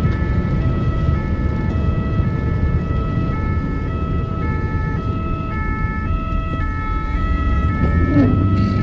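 Ambulance's own emergency siren, stepping back and forth between two pitches, over the steady low rumble of the moving vehicle.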